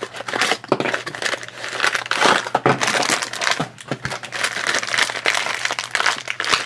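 Crackling and crinkling of a cardboard blind box being opened and a blue plastic blind bag pulled out and handled, a dense run of small crackles and clicks.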